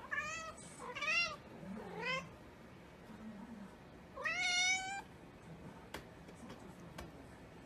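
Cat meowing: three short, high meows in the first two seconds, then a longer rising meow about four seconds in, followed by a couple of faint ticks.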